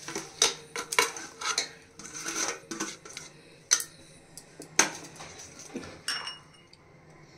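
Chopped mustard greens being pushed into a metal pressure cooker by hand: rustling leaves with light knocks and clinks against the pot, including two sharper clicks around four and five seconds in, then quieter near the end.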